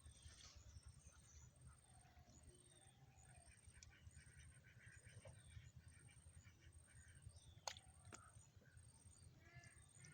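Faint chirping of small birds over a low rumble, with one sharp click about eight seconds in.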